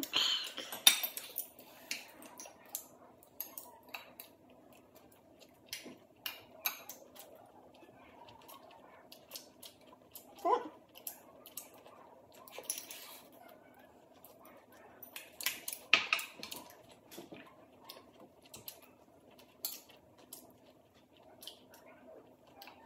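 Chopsticks clicking and tapping against porcelain rice bowls while two people eat, irregular light clinks throughout, with a louder clatter in the first second and again about sixteen seconds in. A faint steady hum runs underneath.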